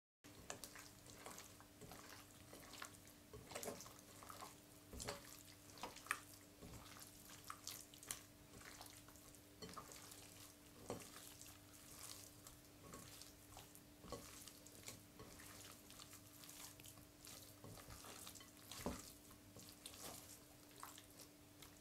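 Faint, irregular wet squelching of hands kneading raw chicken thighs in a vinegar and spice marinade in a glass bowl. A faint steady hum runs underneath.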